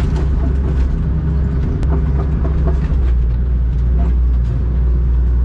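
Diesel engine of an excavator (digger) running steadily with a deep rumble, with a few light knocks over it.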